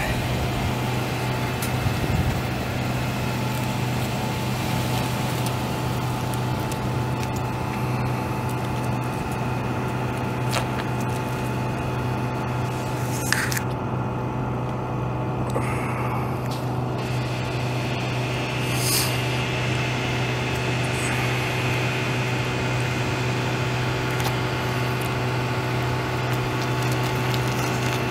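Ford F150's 5.0 L V8 gas engine idling steadily, with a few faint clicks over it.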